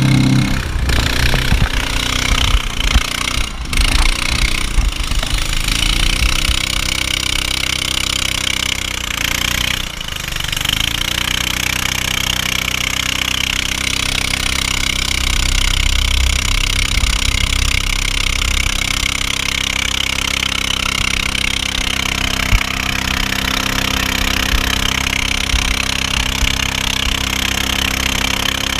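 Engine of a narrow motorized river boat running steadily at speed, with water rushing and spraying past the hull. Its pitch dips briefly about ten seconds in and then picks up again, and wind buffets the microphone in the first few seconds.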